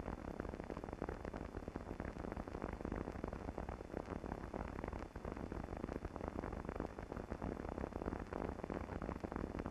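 Steady hiss and crackle of an old film soundtrack with a low hum, carrying no distinct sound events.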